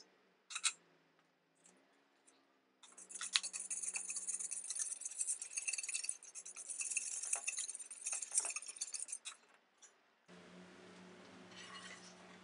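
Wire whisk beating a thin milk-and-egg custard mixture in a stainless steel bowl, its wires rapidly clinking and scraping against the steel. It starts about three seconds in and stops about nine seconds in.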